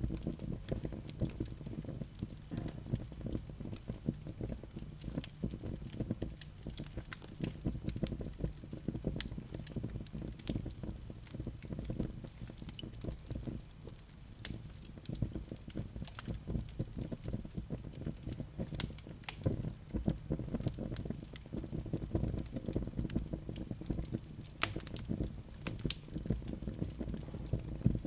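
Wood fire burning in a fireplace: a steady low rumble of flames with constant irregular crackles and sharp pops from the burning logs.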